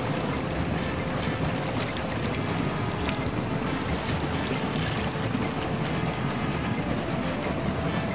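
Hands scooping and splashing water in a shallow muddy pool, over a steady rushing, rumbling noise.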